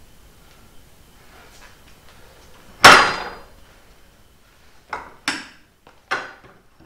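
Foot-pressed lever tabs of a universal mobile base (Bora Portamate) under a jointer stand, engaging the casters: one loud clunk about three seconds in, then three shorter, sharper clacks.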